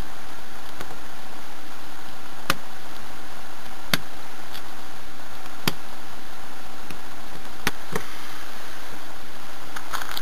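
Steel ball bearings, a quarter inch across, clicking as they are pressed one at a time into the rails of a stainless steel Möbius pendant. There are a handful of sharp clicks a second or two apart, over a steady hiss.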